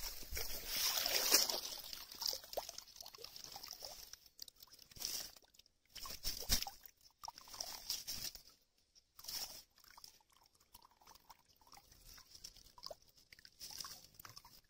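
A dip net swept through shallow, weedy pond water, with splashing and sloshing over about the first two seconds. Then come scattered short crackles and rustles as wet dead leaves and plant debris are picked through in the net's mesh.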